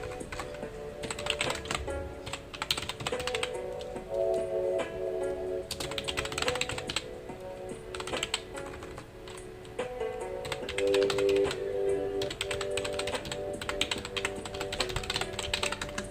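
Computer keyboard typing in quick bursts of key clicks with short pauses between them, over soft background music of held notes.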